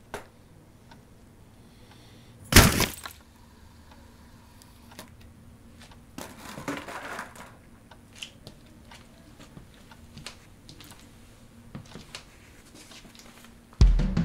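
A sudden loud crash about two and a half seconds in, tagged as something breaking. A softer scraping rustle follows around six to seven seconds, with faint scattered ticks, and a heavy deep hit comes near the end.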